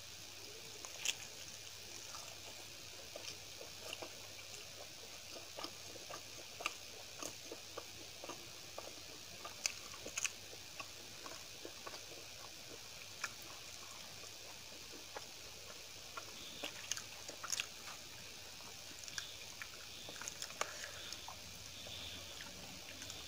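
Close-up chewing and mouth sounds of someone eating rice, chapati and vegetable curries by hand: irregular wet smacks and clicks, a few louder than the rest, over a low steady hiss.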